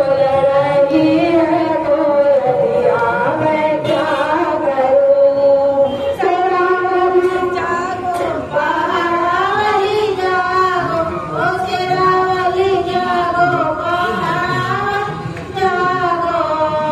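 Women singing a Hindi devotional bhajan into a microphone, one voice leading with others joining in. Partway through, a second woman's voice takes over the lead.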